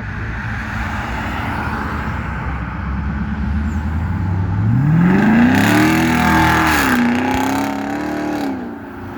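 Stock exhaust of a 2020 Chevrolet Camaro SS's 6.2-litre LT1 V8, running low and steady, then revving up about four and a half seconds in. It holds the revs with a brief dip and drops back near the end.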